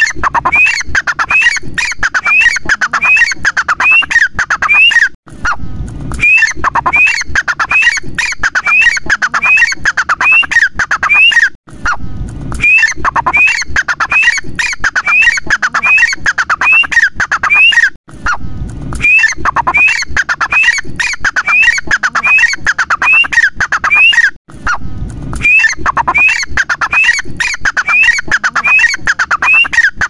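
Grey francolin (teetar) giving its loud territorial call: a rapid series of short, sharp, rising notes, about two a second, in repeated bouts of some six seconds with brief pauses between them.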